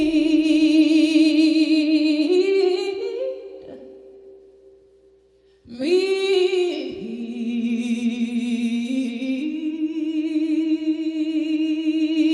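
A woman singing a slow gospel hymn unaccompanied, drawing out long wordless notes with vibrato. Her note fades away about four seconds in, and a new long note starts about a second and a half later and is held with small steps in pitch.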